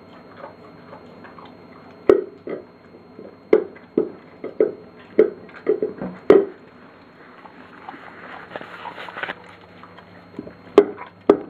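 Flat-coated retriever eating from a bowl on the floor: irregular crunches and knocks as it chews, loudest about six and eleven seconds in.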